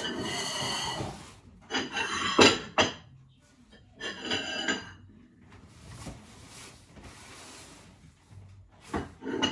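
Groceries being handled on a kitchen worktop: packaging rustling and a cardboard cereal box scraping and knocking on the counter. The sound comes in several short bursts, with a few sharp knocks.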